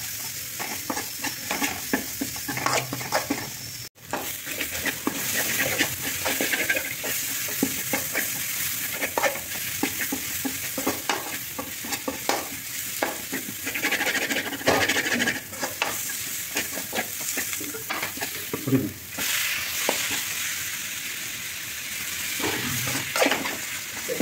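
Chopped onions frying in oil in an aluminium kadai, sizzling steadily, while a metal spoon stirs and scrapes against the pan. The sound drops out briefly about four seconds in.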